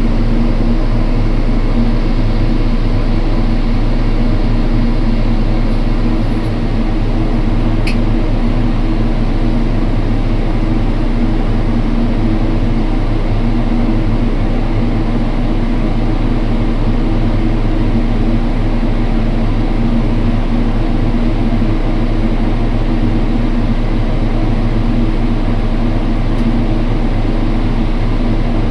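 A large machine engine running steadily at constant speed, a dense even drone with a low hum, and a brief faint click about eight seconds in.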